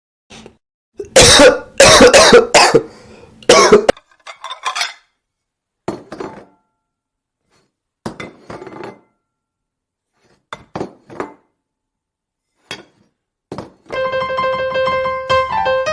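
A person coughing and clearing their throat in loud bursts, the heaviest about one to four seconds in, then short scattered coughs with gaps between. Near the end a keyboard melody begins.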